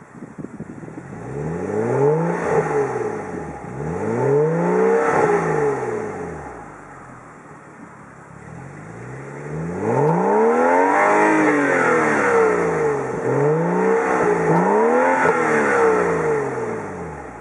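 Stock exhaust of a BMW 335i (F30) with its turbocharged straight-six, revved several times while standing. Each rev rises and falls back within a second or two. There are two revs, a short stretch at idle, then about three more revs close together.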